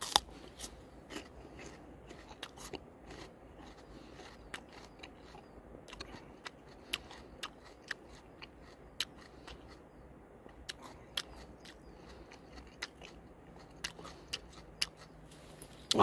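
Close-up chewing of a raw, peeled Chinese asparagus root (Asparagus cochinchinensis tuber) with a fern leaf: a string of irregular crisp crunches and mouth clicks, a louder one at the very start.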